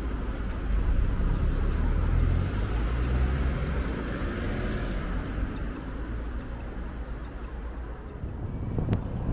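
Road traffic: a motor vehicle passes close by about a second in, its low rumble fading away over the next few seconds. A single sharp click near the end.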